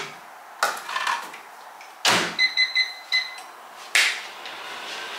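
Over-the-range microwave oven being shut and started: a few light clicks, the door shut with a loud thud, a quick run of high keypad beeps, then the oven running with a steady hum. A single sharp clap about four seconds in, just before the hum starts.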